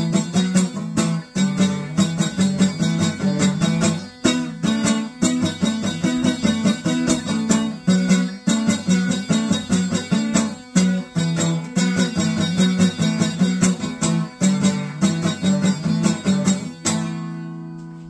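Instrumental music led by a plucked string instrument playing quick rhythmic notes over a steady low line, ending on a held chord that rings and fades out near the end.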